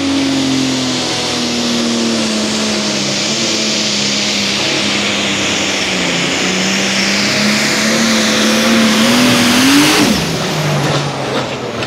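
A competition pulling tractor's engine running flat out under load as it drags the weight sled, with a dense hiss over the engine note. About ten seconds in the pitch climbs briefly, then falls away sharply as the throttle is let off at the end of the pull.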